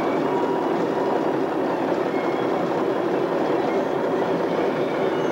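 Caterpillar D8N crawler dozer running steadily under way, its diesel engine and steel tracks making a continuous heavy clatter with a few faint squeals.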